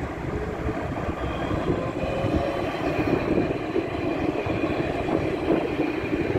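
Articulated electric tram running past close by on its rails: a steady rumble with a thin high whine over it.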